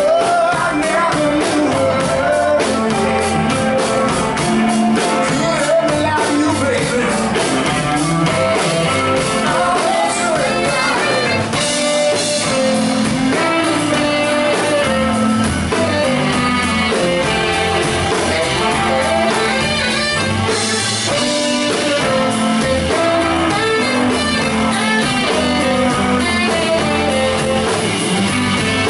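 Live blues-rock band playing steadily: electric guitar over a drum kit, with a tenor saxophone playing a melodic line.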